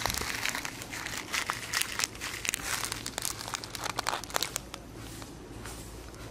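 Close crinkling and crackling handling noise, a rapid run of small crackles that eases off after about four and a half seconds.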